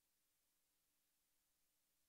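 Near silence: a faint steady hiss with a low hum.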